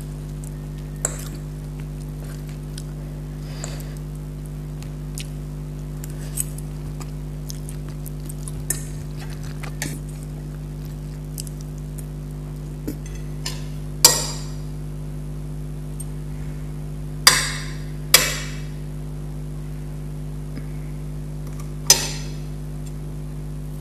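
Metal fork and spoon clinking and scraping against plates while eating, in scattered sharp strikes that ring briefly; the loudest come about halfway through, twice a few seconds later, and once near the end.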